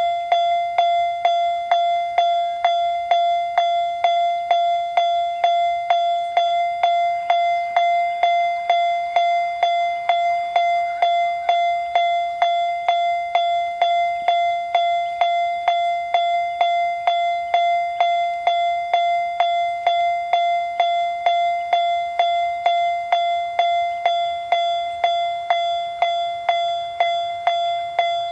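Japanese railroad crossing warning bell ringing the 'kan-kan' alarm, one clear pitched tone repeated evenly at about one and a half strikes a second.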